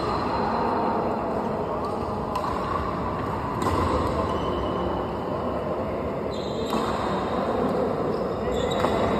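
A badminton rally: a few sharp racket strikes on the shuttlecock, irregularly spaced one to three seconds apart, over steady background noise.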